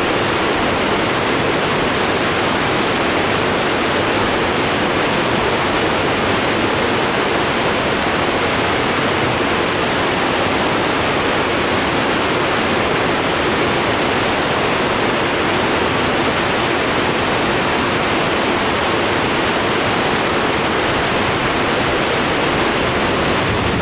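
Rain-swollen creek rushing fast and turbulent below a dam: a steady, loud rush of water.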